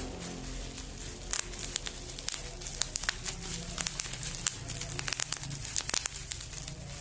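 Packaging being handled and opened by hand: crinkling and rustling with many small irregular clicks and crackles.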